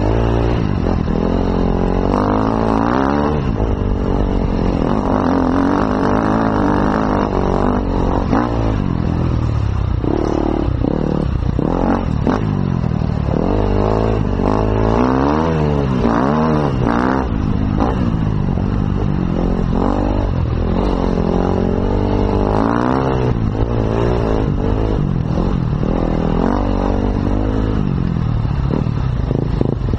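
Off-road motorcycle engine heard close up, its pitch rising and falling over and over as the throttle opens and closes and the rider shifts gears on a rough dirt trail.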